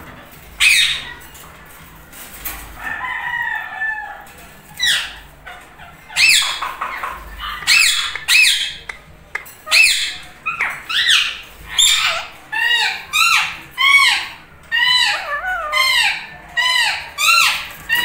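Indian ringneck parakeets calling: a run of short, sharp, high squawks, a few at first and then about two a second over the second half, with softer warbling chatter a few seconds in.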